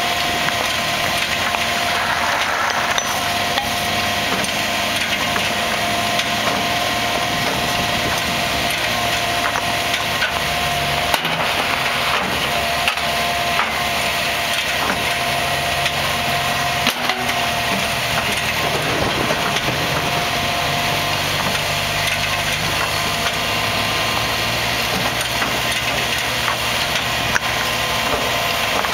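Tracked brick-laying machine running steadily with a constant whine, with scattered clacks of clay paving bricks knocking together.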